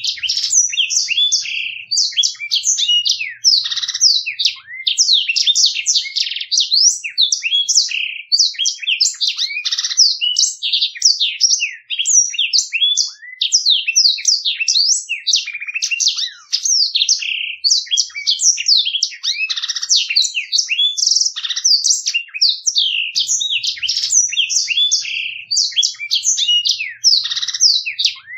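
Blackthroat (black-throated canary, a small seedeater kept as a cagebird) singing a long, clear rolling song of rapid high twittering notes and trills, almost without a break.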